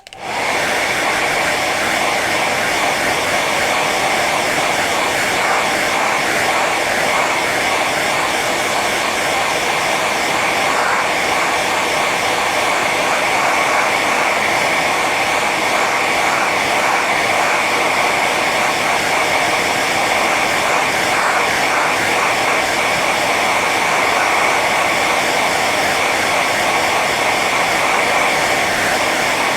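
Hair dryer running on its high setting: a steady rush of blown air with a motor whine, switching on at the start and holding level.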